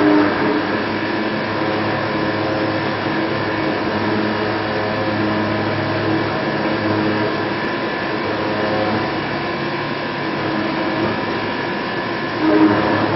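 High-speed milling machine's spindle running and its cutter machining a metal block: a steady mechanical noise with several steady whining tones. It gets briefly louder near the end.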